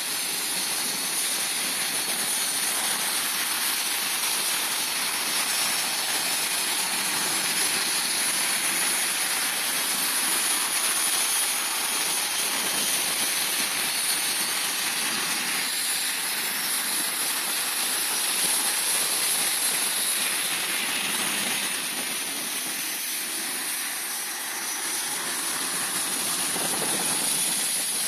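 BAE Hawk T1 jets taxiing past, their Rolls-Royce Turbomeca Adour turbofan engines running at taxi power: a steady high-pitched jet whine over a rushing hiss.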